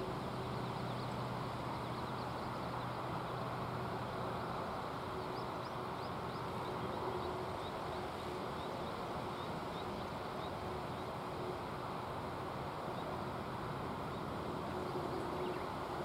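Steady outdoor background rush at a riverside, with faint, short, high chirps of small birds scattered through the middle.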